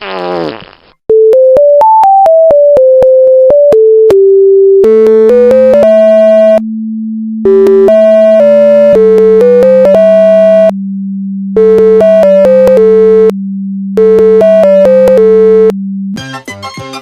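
Synthesizer melody in a buzzy, beep-like tone, stepping note by note in short phrases with brief gaps. A steady low drone joins about five seconds in and drops lower partway through. A quick falling sweep opens it, and different, busier music takes over near the end.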